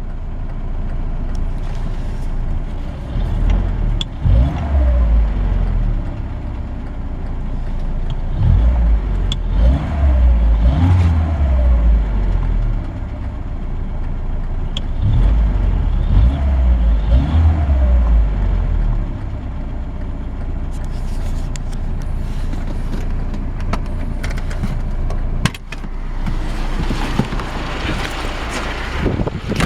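VAZ-21063 (Lada) inline-four engine idling and revved three times, each rev rising and falling back to idle, run to show a knock in the engine. A sharp click comes about 25 seconds in, and a rushing noise builds near the end.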